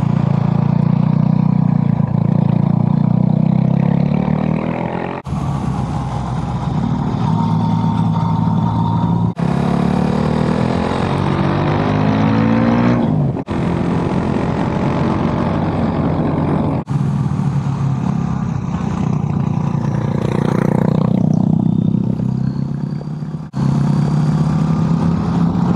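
Motorcycle engines running on the move, pitch rising and falling as the bikes are revved and shifted, under a steady rush of wind. The sound jumps abruptly every few seconds as one riding shot cuts to the next.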